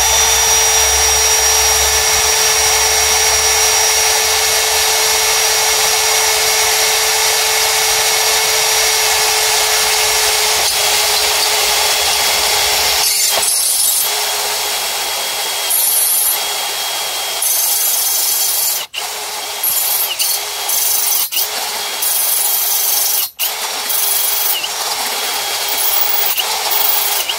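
Milwaukee cordless drill driving a Milwaukee step drill bit through 4 mm steel: a steady motor whine with the grinding of the bit cutting metal. About halfway through it turns uneven, and the drill stops and restarts briefly three times before it cuts off at the end.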